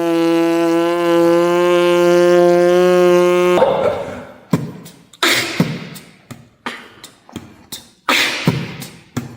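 Beatboxer imitating a vacuum cleaner with his voice: a steady buzzing hum held for about three and a half seconds, then a series of short breathy hissing bursts.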